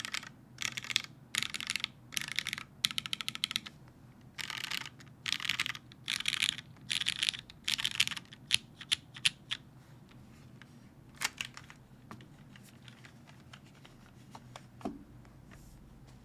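Custom mechanical keyboard with lubed Cherry MX2A Black linear switches on a top-mounted aluminium plate, with GMK keycaps, typed on in quick bursts of keystrokes for about eight seconds. It then slows to scattered single key presses, with one duller knock near the end.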